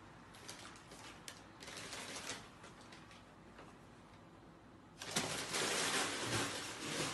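A cat struggling in a paper bag on a wooden floor: faint crinkles and claw clicks, then about five seconds in a sudden louder stretch of paper crackling and scrabbling as the cat breaks out of the bag and scrambles away.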